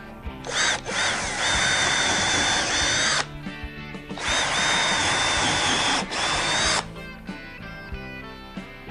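Electric drill running in two bursts of about two and a half seconds each, its whine climbing quickly up to speed and then holding steady before stopping abruptly.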